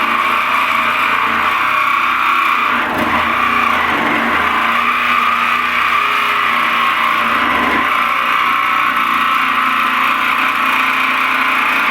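Ryobi P521 18-volt cordless orbital jigsaw running steadily, its blade sawing through the steel lid of a barrel.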